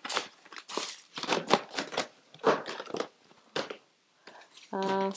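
Eyeshadow palette packaging being handled: a cardboard palette box with a plastic bubble-wrap insert picked up and moved, giving a string of short, irregular crinkles and rustles.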